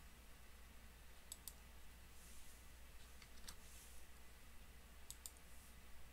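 A few faint clicks from working a computer mouse and keyboard: a pair about a second in, one near the middle and another pair near the end, over a low steady hum.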